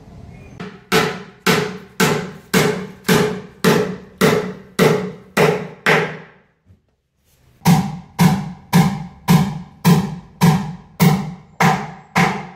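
Hammer blows struck at a steady pace of about two a second, each ringing briefly. There are two runs of about ten blows, with a short break between them.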